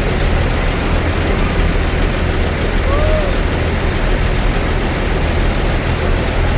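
Large bus's diesel engine idling close by, a steady low rumble.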